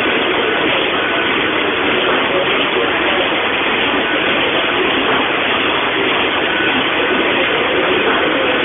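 Multi-unit offset printing press running, a loud, steady mechanical noise that does not change.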